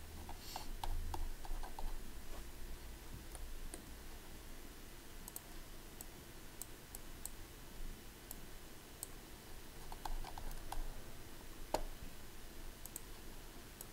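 Faint, irregular clicks from a computer mouse.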